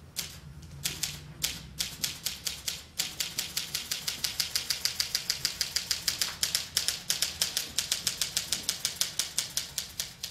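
Manual typewriter being typed on, key strikes clacking: a few separate strokes at first, then from about three seconds in a quick, even run of about six keystrokes a second.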